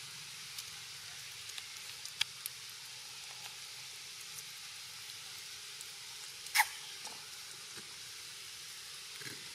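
Steady high hiss of background noise, with a few faint clicks and one short, sharp squeak about two-thirds of the way in.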